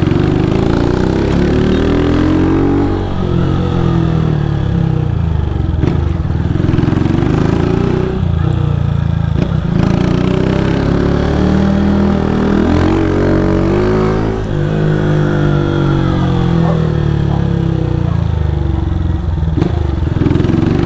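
Honda motorcycle engine heard from the rider's seat while riding, its note repeatedly rising and falling every few seconds as the throttle is opened and eased off.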